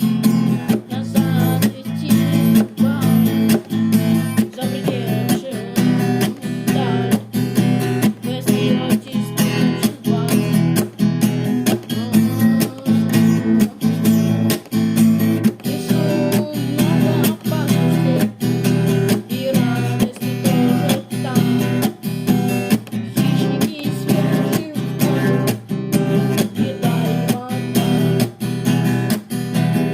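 Acoustic guitar strumming chords in a steady, even rhythm.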